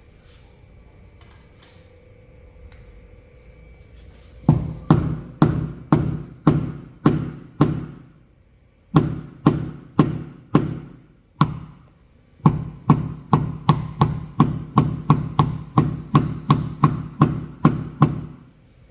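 A string of sharp hammer taps on a tap-down tool against an aluminium car hood, knocking down a raised dent during paintless dent repair. The taps start a few seconds in at about two a second, pause twice, and end in a faster run of about three a second, each tap ringing briefly.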